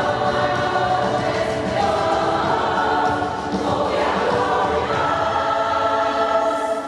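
A large community choir singing a pop song in chorus, holding long sustained notes.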